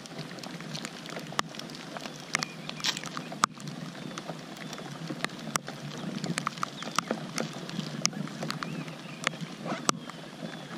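Steady rain falling on lake water and a kayak, with irregular sharp ticks of drops striking close by.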